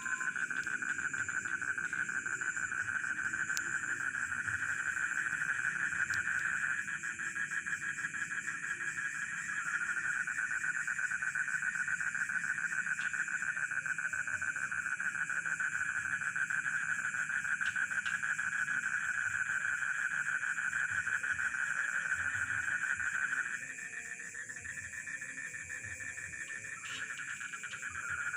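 Chorus of rice-field frogs and crickets: dense, steady pulsing calls layered at several pitches. The main chorus drops out twice for a few seconds, about 7 s in and again about 24 s in, while the higher insect trill carries on.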